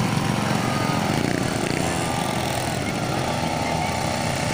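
Steady drone of small motor-vehicle engines running, from children's mini motorbikes and mini quad bikes moving about.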